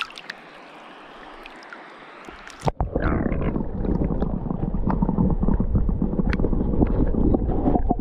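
Steady hiss of a shallow, fast-flowing river. About two and a half seconds in, it switches suddenly to much louder rumbling, sloshing water with scattered small knocks.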